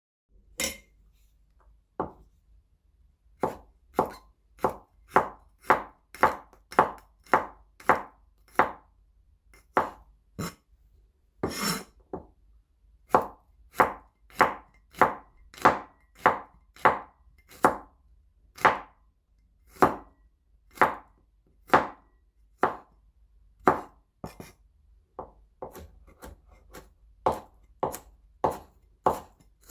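Knife chopping garlic on a chopping board: a long series of separate sharp chops, about one to two a second, with a few quicker runs and one heavier, longer chop about twelve seconds in.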